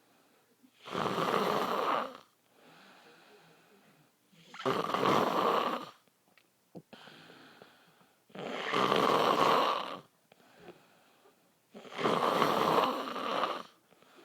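A man snoring loudly: four long snores, about one every three and a half seconds, with quiet breathing between them.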